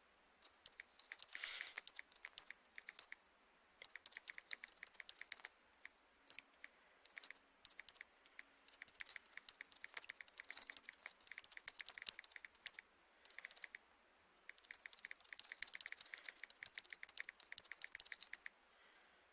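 Typing on a computer keyboard: runs of quick, faint key clicks with short pauses between them.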